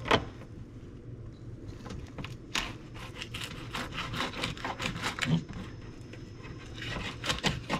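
Fillet knife cutting along the backbone of a mangrove snapper: short, irregular scraping strokes as the blade runs over the bones, the sharpest right at the start.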